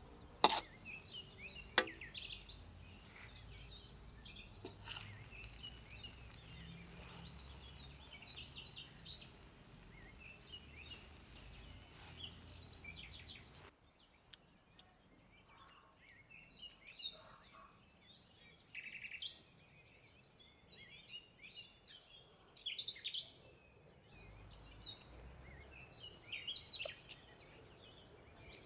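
Birds chirping outdoors throughout, in repeated high trills. In the first half a metal spatula stirs glass noodles in a wok, striking the wok sharply twice near the start.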